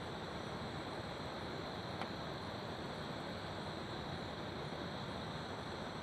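River water rushing steadily, with crickets trilling continuously high above it. A single brief click about two seconds in.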